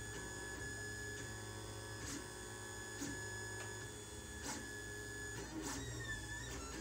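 LulzBot Mini 3D printer printing: its stepper motors whine in several steady tones over a low hum as the print head moves, with a few short ticks where the moves change.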